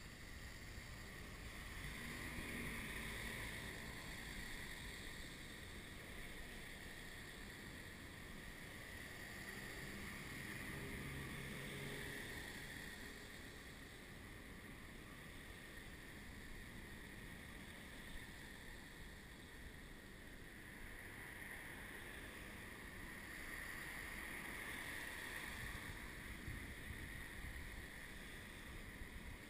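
Steady whine of the electric motors and propellers of a radio-controlled aircraft carrying the camera, swelling and easing slowly, over low wind rumble on the microphone.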